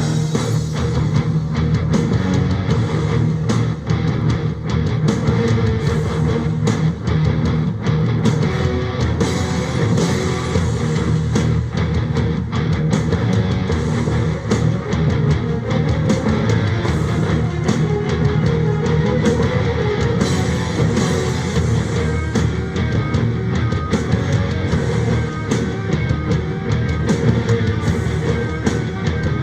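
Heavy metal band playing live with a symphony orchestra in an instrumental passage: distorted electric guitars and a drum kit keep a steady beat, with no vocals.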